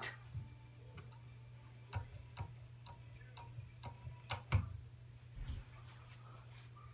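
Casablanca Four Seasons III ceiling fan running with a steady low hum, overlaid by a dozen or so irregularly spaced sharp clicks and taps, the loudest about two seconds and four and a half seconds in.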